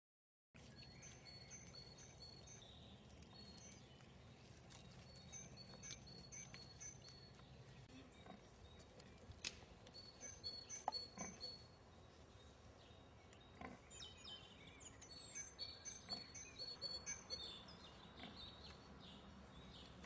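Faint garden ambience: small birds singing in the background, short high notes repeated over and over, over a low steady hum. A few soft taps stand out near the middle.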